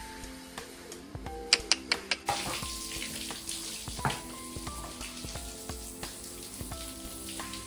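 Water from a hose spraying onto a horse's wet coat, a steady hiss that starts about two seconds in, after a few sharp clicks. Background music plays throughout.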